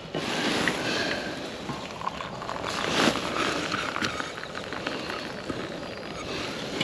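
Coffee being poured from a vacuum flask into its steel cup, a steady pour.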